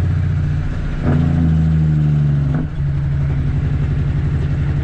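Caterpillar C13 inline-six diesel in a Kenworth W900B dump truck, running under load, with two short breaks in the engine note, about one second and two and a half seconds in, that sound like gear changes.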